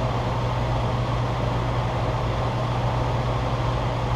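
Propane cooker burner firing steadily under a boiler: an even rushing noise over a strong low hum.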